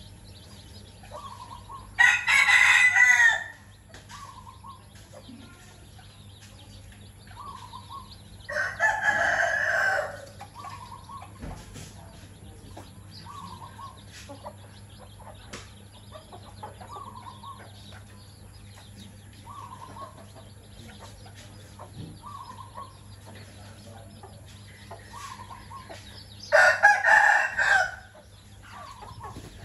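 A rooster crowing three times, each crow about a second and a half long, over soft, regularly repeated clucking from hens.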